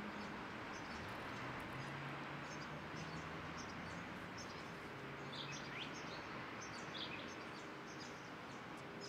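Steady outdoor ambient noise with small birds chirping, the chirps growing more frequent in the second half, over a faint low drone. It cuts off suddenly at the end.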